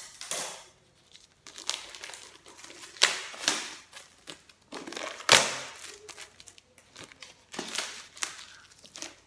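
Clear plastic shrink wrap being torn open and peeled off a hardcover book, crinkling in irregular crackles, loudest about five seconds in.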